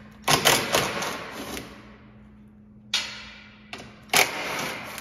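Cordless power driver running in bursts on the skid plate bolts, loosening the side skids so they can be pulled down: one run of about a second, then several short bursts near the end.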